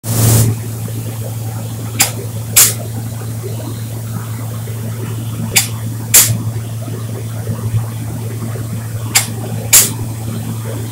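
Spray gun spraying varnish onto wood boards, giving short, sharp hisses in pairs about half a second apart, repeating every three to four seconds. A steady low hum runs underneath throughout.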